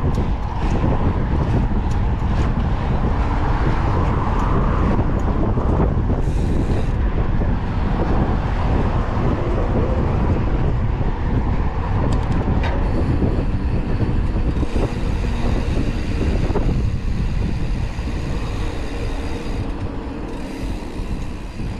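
Wind buffeting and trail rumble on a mountain bike's onboard camera while riding, with a run of sharp rattling clicks in the first several seconds, fading a little near the end.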